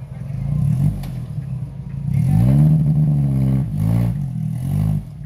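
Off-road buggy's engine revving hard under load as it climbs a steep, muddy track. The pitch surges up and down, with a big rise about two seconds in and another near the end.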